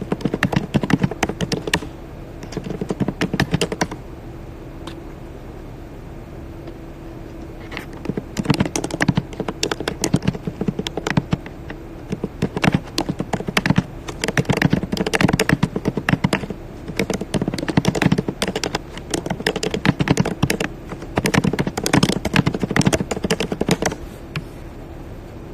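Rapid typing: quick runs of small clicks, a short run about a second in and another around three seconds, then a long stretch of typing from about eight seconds until near the end.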